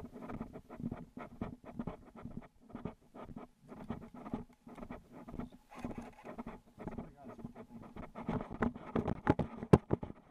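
Footsteps through grass and brush with the rustling and knocking of carried gear, close to the camera, in irregular scuffs a few a second. One sharp click stands out near the end.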